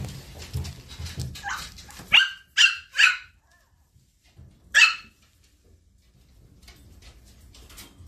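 Shiba Inu puppy yapping: three quick high-pitched yaps a little over two seconds in, then one more about a second and a half later. Soft low thumps come before the yaps.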